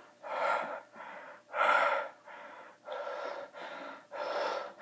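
A person breathing hard and fast into the microphone, loud breaths alternating with softer ones at about one and a half breaths a second.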